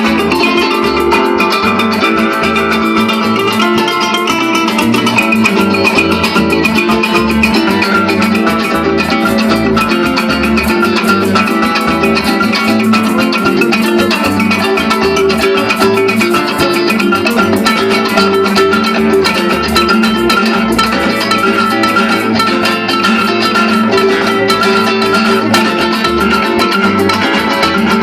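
Bandola played in fast picked runs, with a bass line moving underneath.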